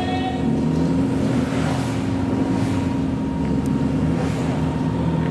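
Suzuki Jimny trial car's engine running steadily.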